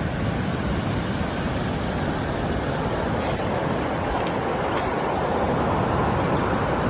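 Surf from large sea waves: a continuous rushing wash of breaking water, growing a little louder past the middle.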